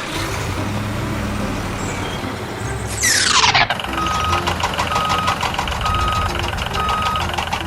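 Vehicle engine rumble, then a quick falling whoosh about three seconds in. After that a reversing alarm beeps steadily about once a second over a rattling engine.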